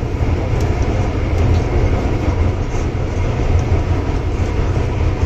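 Cabin noise of an MTR Island Line M-Train running through a tunnel, heard inside the carriage: a steady, loud low rumble.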